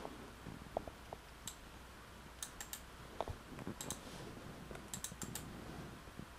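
Faint computer keyboard keystrokes and mouse clicks, irregular and often in small clusters of two or three.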